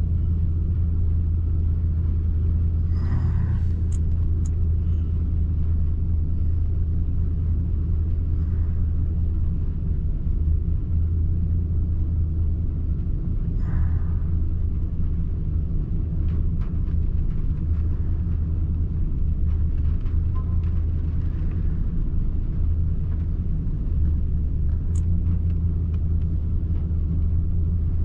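Nissan Titan's gasoline V8 idling with a steady low rumble. The engine has a multiple-misfire complaint, and its scan data shows bank 2 running rich.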